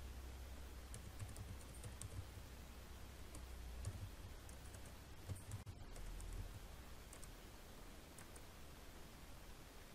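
Faint computer keyboard typing: scattered, irregular keystrokes as a short phrase of text is typed, over a low steady hum.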